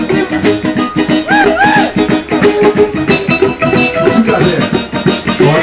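Live band playing a hip-hop/R&B groove: drum kit keeping a steady beat under electric bass and other pitched parts, with a few short gliding notes about a second and a half in.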